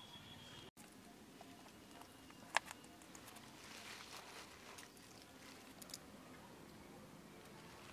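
Faint outdoor background with a sharp click about two and a half seconds in and a smaller one near six seconds, cut by a brief dropout under a second in.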